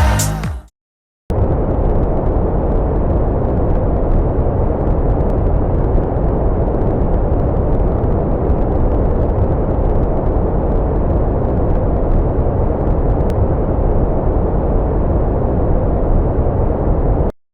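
Steady test noise: an even rushing hiss, heaviest in the bass and with little high treble, held at a constant level. It starts about a second in, just after a song cuts off, and stops abruptly near the end.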